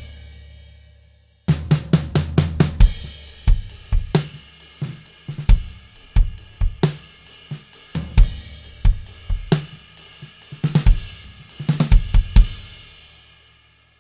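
A drum kit played on its own: bass drum, snare, hi-hat and cymbal strikes in a rhythmic pattern starting about a second and a half in, ending with a cymbal left ringing and fading out.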